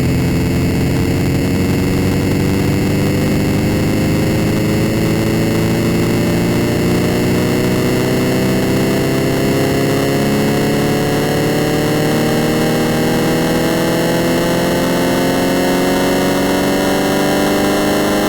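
Heavily distorted, effects-processed electronic sound: several layered tones slowly rising in pitch together over a dense hiss and a steady low drone.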